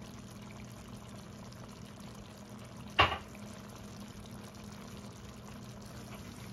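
Pot of beef rezala simmering on a gas burner with a faint, steady hiss over a low steady hum, and one sharp knock about three seconds in.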